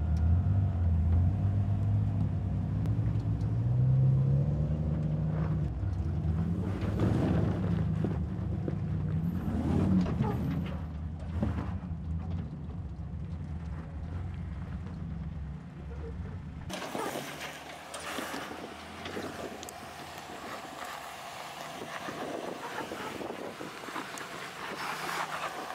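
Lifted Jeep Comanche rock crawler's engine running at low revs and revving up and down as it climbs over rock ledges. About 17 seconds in the deep engine note drops away at a cut, leaving a thin hiss of wind on the microphone with faint engine sound.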